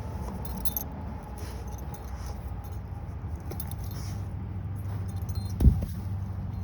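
Light metallic jingling, like a dog's collar tags, over a steady low rumble. One short thump comes near the end.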